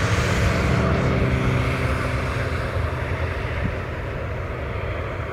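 Jet engines of an Airbus A320-family airliner rumbling on its landing rollout. The hiss dies away in the first second and the low rumble slowly fades as the jet slows and moves off.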